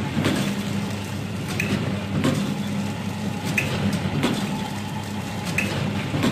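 Vertical form-fill-seal pouch packing machine running over a steady hum. It cycles about once every two seconds, each cycle bringing a clack and a short high chirp as a snack pouch is sealed and cut.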